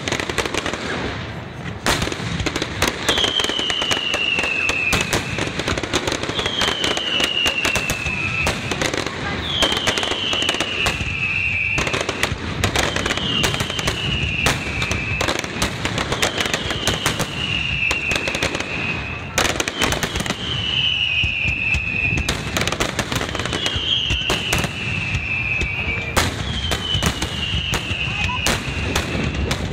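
Aerial fireworks shells bursting in a dense, continuous barrage of bangs and crackles. Over it, a high tone slides downward about every three seconds, eight times in all.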